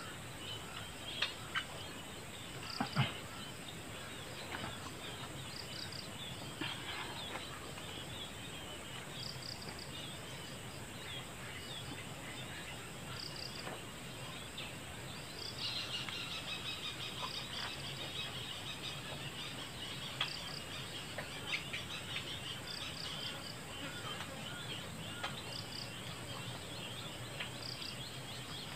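Outdoor ambience of insects chirping: short high chirps repeat every few seconds over a steady insect drone, with a denser burst of fast high trilling about halfway through. A few sharp clicks or knocks come between one and three seconds in.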